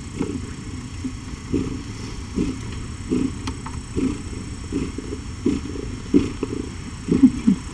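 Nursing mother cat purring with a steady low rumble, with short soft low sounds recurring about once or twice a second.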